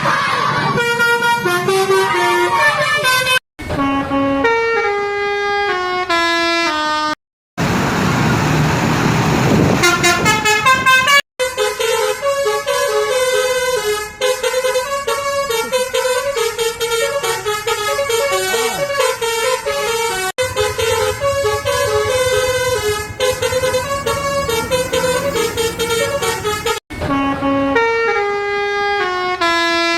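Indonesian bus 'telolet basuri' multi-tone musical horns playing tunes, the pitch stepping from note to note. Several separate melodies follow one another, each breaking off suddenly.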